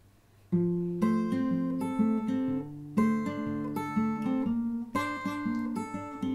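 Acoustic guitar playing an instrumental intro, picked and strummed chords starting about half a second in, with a strong strum about every two seconds.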